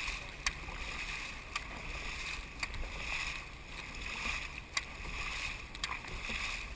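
Dragon boat paddles stroking through the water in an even rhythm of about one stroke a second, each stroke bringing a swell of splashing and rushing water and a sharp click.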